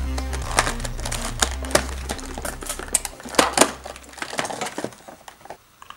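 Stiff plastic blister packaging crinkling and clicking as a toy figure is handled and pulled out of its tray, with the crackles thinning out toward the end.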